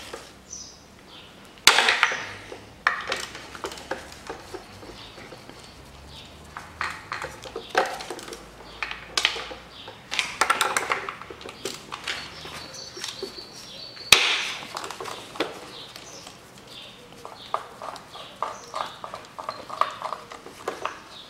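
Ratchet and socket working the intake manifold nuts, with scattered metallic clicks and clinks of the tool on the fittings. A sharp clink comes about two seconds in and another about fourteen seconds in, and a quick run of ratchet clicks plays near the end.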